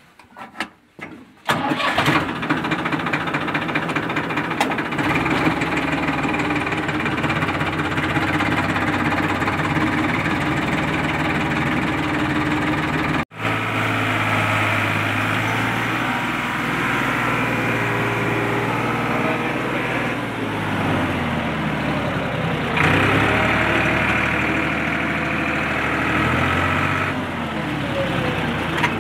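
Farmtrac 45 tractor's diesel engine starting about a second and a half in, then running steadily and loud. Its pitch drops and then rises again about twenty seconds in.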